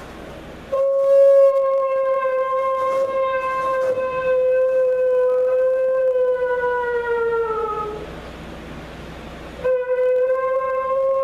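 Shofar blown as the horn of repentance: one long held note that sags in pitch and dies away, then a second long blast starting near the end.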